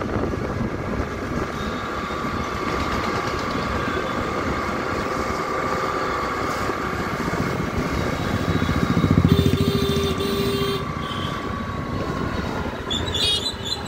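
Engine of a two-wheeler running steadily while riding through the street, with road and wind noise; it gets louder about eight to ten seconds in, and two short beeps sound just after nine seconds.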